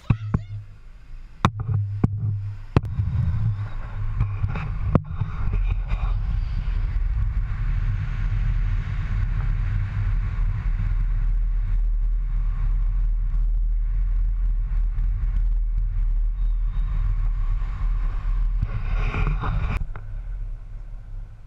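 Mini Cooper S 1.6-litre four-cylinder engine running steadily as the car drives, heard through a camera mounted on the outside of the body, with road and air noise over it. A few sharp knocks come in the first five seconds.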